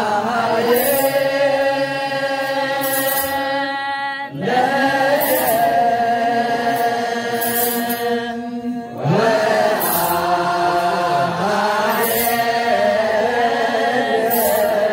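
Ethiopian Orthodox wereb chant: a group of deacons and singers chanting in unison, long held notes that slide slowly between pitches, with short breaths between phrases about four and nine seconds in.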